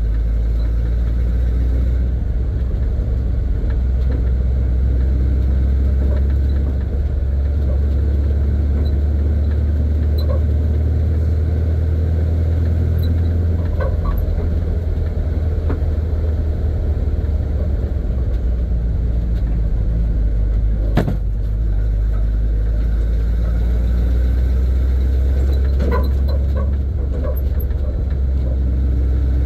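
A 1970 Chevy C50 dump truck's engine is running while the truck drives along, heard from inside the cab as a steady low drone. The drone dips briefly about a quarter of the way in. It dips again about two-thirds of the way through, this time with a single sharp knock.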